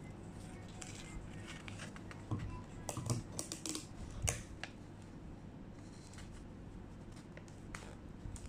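Sheets of paper being handled and folded on a tabletop: a burst of crisp rustles and light clicks in the middle, over a low steady hum.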